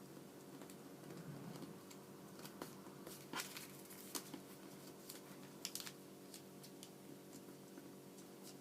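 Origami paper being handled and folded, faint rustling with a few sharp crackles as creases are pressed, the loudest about three and a half, four and six seconds in, over a low steady hum.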